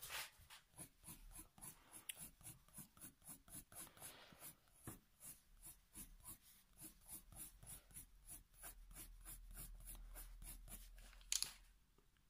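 Faber-Castell Polychromos coloured pencil scratching faintly on paper in short, quick hatching strokes, about three to four a second. The strokes stop near the end with one louder brief knock.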